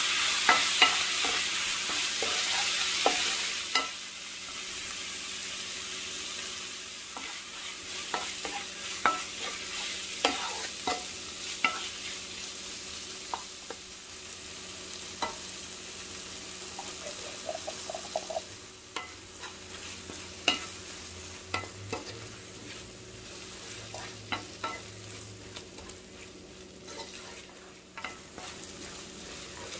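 Food sizzling in a frying pan while a spoon stirs it, with frequent sharp taps and scrapes against the pan. The sizzling is loud at first and dies down after about four seconds.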